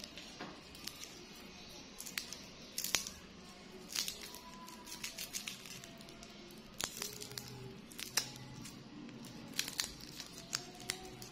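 Plastic wrapper of a ball lollipop being unwrapped by hand: irregular crinkling and crackling with small tearing sounds as the wrapper is twisted and pulled off.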